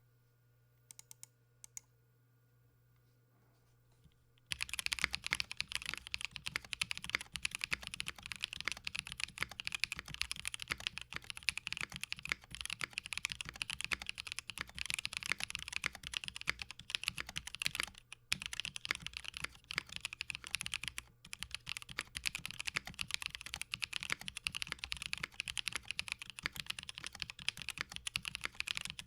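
Steady typing on a Blade60 custom mechanical keyboard with stock, unlubed Technoviolet linear switches on a PC plate and GMK Blue Samurai keycaps. A few faint key taps come first, then continuous fast typing starts about four and a half seconds in, with a couple of brief pauses.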